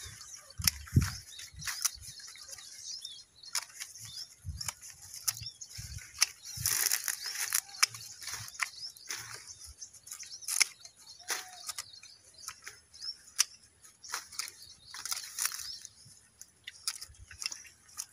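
Hand pruning shears snipping the shoots of young guava plants: irregular sharp snips every second or so, with the leaves rustling as the branches are handled. Birds chirp faintly in the background.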